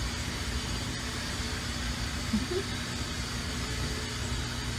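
Steady low background rumble with no distinct events, and a brief voice-like sound about two and a half seconds in.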